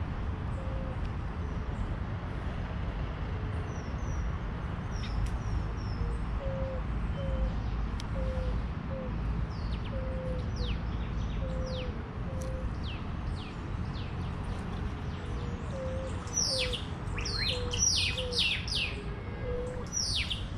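Birds chirping, with many short high chirps that fall in pitch and come thicker and brighter near the end. A short low note repeats about once a second through most of it, all over a steady low rumble.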